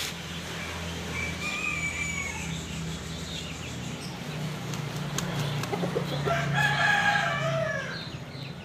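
Rooster crowing: a long crow, loudest about seven seconds in, that falls away at its end. A fainter call comes about a second in, and a steady low hum runs underneath.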